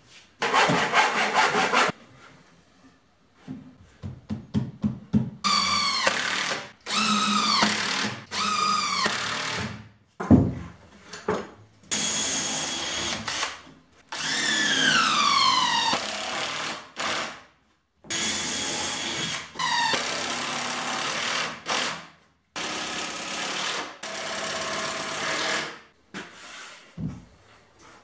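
Workshop power tools run in a series of short bursts of a second or two each, with gaps and a few knocks between them. Some runs rise and fall in pitch, and one about halfway through falls steadily in pitch as it stops.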